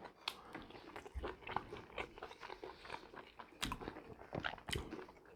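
Close-up chewing and biting of food, with many small irregular crunches and crackles of a crisp mouthful.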